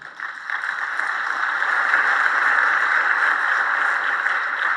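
Audience applauding: steady clapping that builds over the first second.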